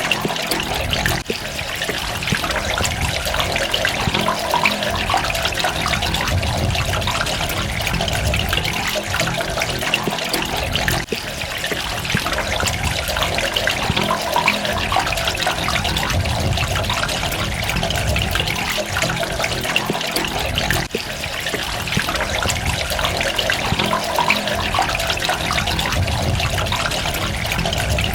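Running water splashing in droplets, a steady rush with a low rumble underneath. Brief dips in level about every ten seconds.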